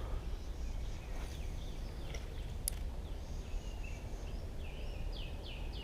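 Creekside ambience: a bird calling in a run of short, quick descending chirps, about three a second, starting around the middle, over a steady low rumble, with a single sharp tick about two and a half seconds in.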